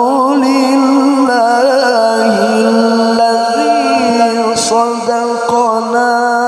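A male qari chanting solo through a microphone and PA in long, melismatic held notes, with wavering ornamental turns on the pitch.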